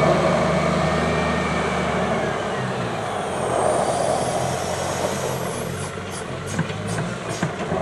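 Volvo L70G wheel loader's diesel engine running under load as the machine drives in and raises its bucket, with a brief high whine near the middle. From about six seconds in come a run of short knocks and thuds as the bucket tips its snow into a truck's tipper bed.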